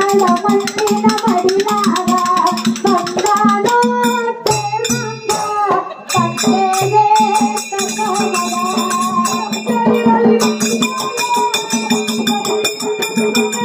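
Live Kannada dollina pada folk song: a melodic sung line over small brass hand cymbals (taala) struck in a fast, even rhythm. A steady low drone comes and goes beneath.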